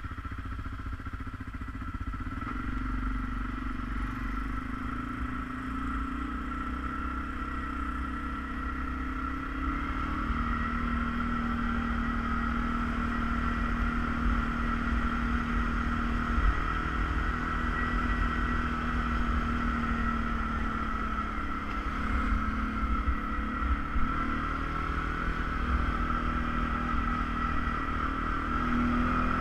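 ATV engine running steadily under way, a low rumble with a steady high whine above it.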